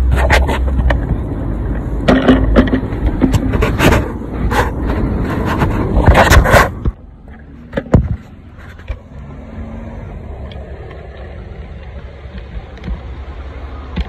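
Plastic air filter housing lid being handled and pushed back down onto a new panel air filter, giving repeated knocks, clatter and scraping close to the microphone. About seven seconds in this stops, leaving a quieter low background with a single knock shortly after.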